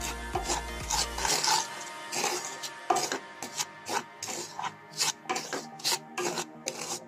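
Wooden spatula scraping and turning semolina in a metal kadai in short, irregular strokes, about one or two a second, as the semolina roasts.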